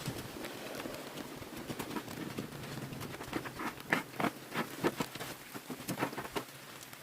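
Rain pattering on a surface, with a cluster of louder, irregular taps about halfway through.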